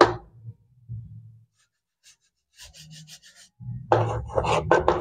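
Chalk scratching and rubbing on a blackboard in short strokes, picking up a little past halfway and growing denser near the end.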